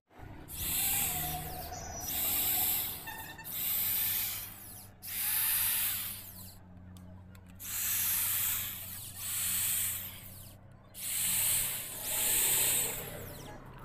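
Handheld electric screwdriver running in about eight short whirring bursts, each roughly a second long, as it backs the screws out of a Hero Honda motorcycle's clutch cover.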